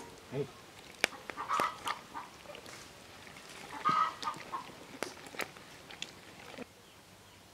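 Short animal calls, twice about two seconds apart, among scattered sharp clicks and knocks; the sound stops abruptly near the end.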